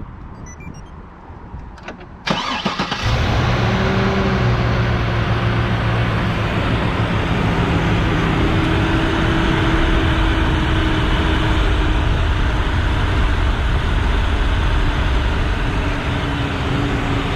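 Chevrolet Trailblazer SS's 6.0-litre LS2 V8 starting about two seconds in, a brief crank before it catches, then idling steadily. It is running on a newly fitted AC belt, serpentine belt and belt tensioner, started as a test of whether the loud rubbing noise from the old seized tensioner is gone.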